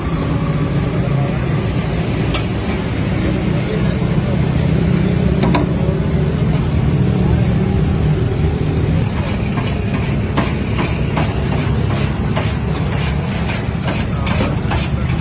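Steady low rumble of a running vehicle engine or traffic. From about nine seconds in, a quick run of sharp clicks comes in, about three a second.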